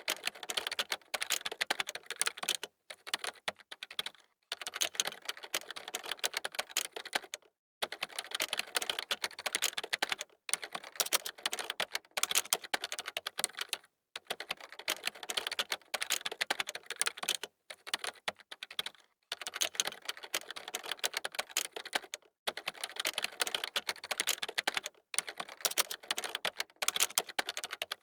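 Fast typing on a computer keyboard: dense runs of key clicks broken by short pauses every few seconds.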